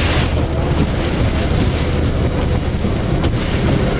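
Strong wind rushing steadily over a vehicle, with the vehicle's low engine hum underneath. One sharp tick about three seconds in.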